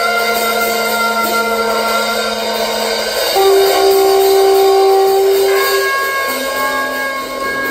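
Free-improvised jazz trio: saxophone and trumpet hold long sustained notes that shift pitch every few seconds, with a louder low note entering about three seconds in. Drums and cymbals play lightly underneath.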